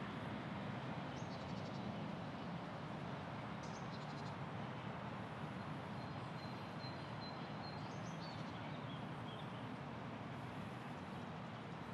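Park ambience: a steady low background rumble, with small birds chirping faintly every few seconds and a thin, higher trill around the middle.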